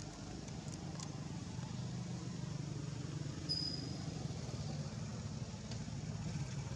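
A steady low engine hum from a motor vehicle running, with a brief high chirp about halfway through.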